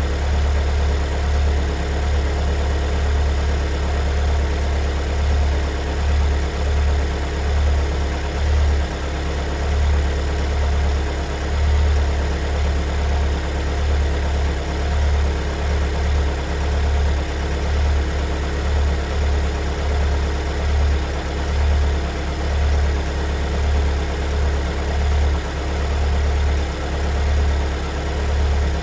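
2022 Kia Sorento's 2.2-litre four-cylinder diesel engine idling after a cold start: a steady low drone that swells and dips a little unevenly.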